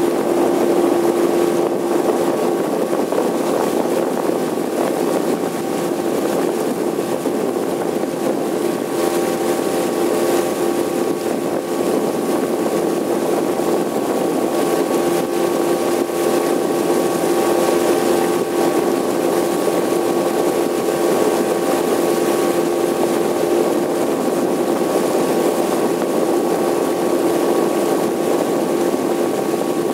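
A small motorboat's engine running at a steady cruising speed: a constant drone that holds one pitch, over the rush of water and wind.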